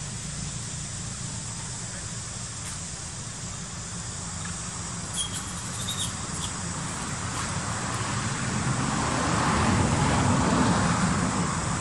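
Road traffic noise: a passing motor vehicle, growing louder from about halfway through and loudest near the end.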